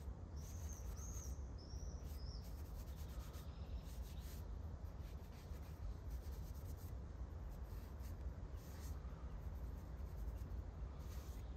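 Paper towel rubbing along a knife blade in repeated short wiping strokes. A bird chirps four times near the start.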